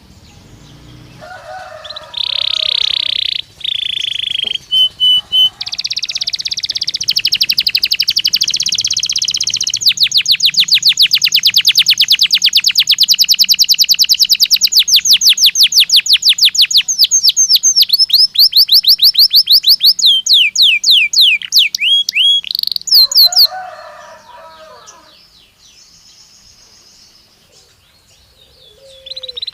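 Canary singing a long song: rolling warbled phrases, then a fast trill of rapid repeated notes lasting about ten seconds, ending in a few falling chirps. A pause follows, and a new phrase starts at the very end.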